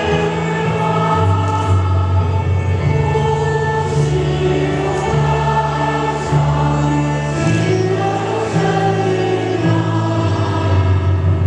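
Choir singing the entrance hymn of a Catholic Mass, over an accompaniment of long sustained low notes that change pitch about once a second.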